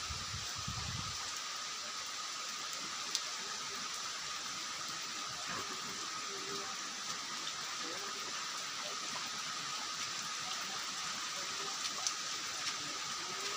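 Steady rain falling on trees and undergrowth, an even hiss. A low rumble of wind on the microphone sounds during the first second.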